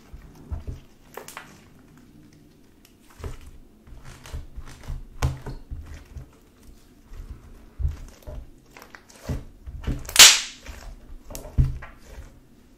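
Hands squishing, stretching and pressing a soft glue slime mixed with deodorant stick: irregular wet clicks, pops and squelches, with one louder crackling pop about ten seconds in.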